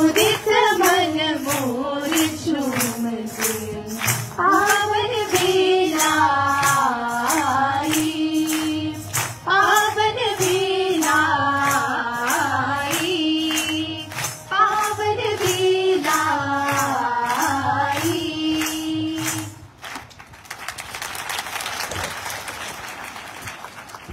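A song with voices singing a melody over music with a steady percussion beat; the music stops about 20 seconds in and gives way to applause.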